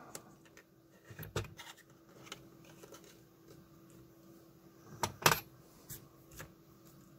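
Small clicks and taps of a trimmer potentiometer being pushed into a circuit board by hand, over a faint steady hum. A louder clatter about five seconds in as the board is set down on the bench mat.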